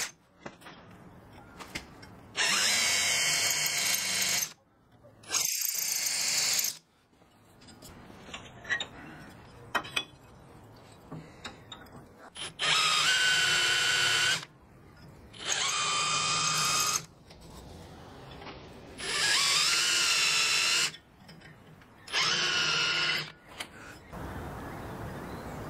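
Power drill driving screws, run in six short bursts of a second or two each, its motor whine rising as it spins up at the start of each, with small clicks and handling noises in the pauses.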